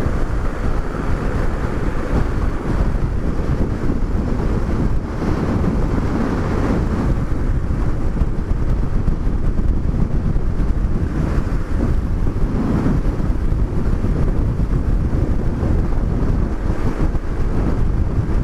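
Wind buffeting the microphone on a moving motorcycle, a steady loud rushing that buries the Honda CBX 200 Strada's engine beneath it.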